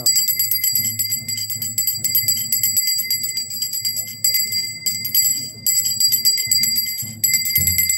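Temple bell rung for aarti in a fast, continuous run of strokes, breaking off briefly a few times. A low steady hum runs underneath.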